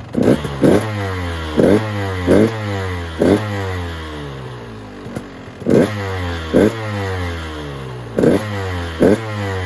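KTM 150 SX two-stroke engine breathing through a Doma expansion chamber and silencer, revved in about nine sharp throttle blips, often two in quick succession, with the revs sinking back slowly between them. The engine is jetted quite a bit rich.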